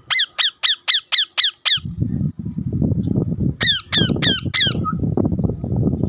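Green ringneck parakeets (rose-ringed parakeets) screeching in quick series of sharp calls, each falling in pitch: seven in a rapid burst at the start, then five more a couple of seconds later. A loud low rumbling noise runs underneath from about two seconds in.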